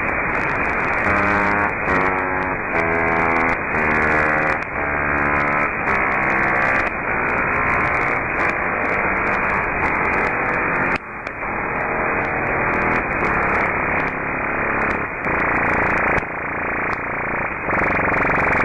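Loud, harsh radio-style static: a garbled transmission from an unknown sender. Pitched tones shift under the static about every half second, and the signal dips for an instant about eleven seconds in.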